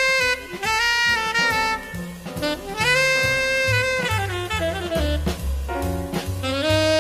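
Jazz instrumental soundtrack with a saxophone-like lead playing long held notes over a stepping bass line and light drums.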